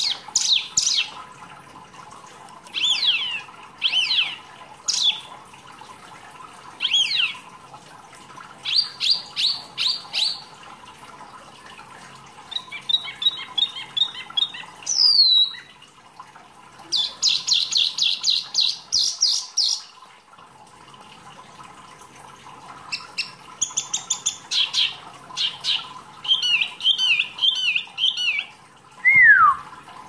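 Caged wambi mini songbird singing a long, varied song. It runs through falling whistled notes, quick trilled runs and chattering phrases with short pauses between them, and ends with a single falling whistle.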